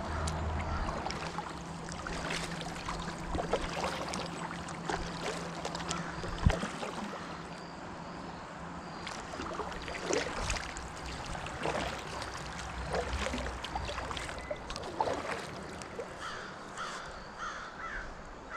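Several crows cawing repeatedly, short calls scattered throughout, over the splash and drip of a kayak paddle.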